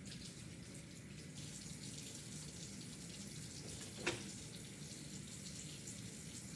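Tap water running into a sink as hands are washed, a steady rush, with one sharp knock about four seconds in.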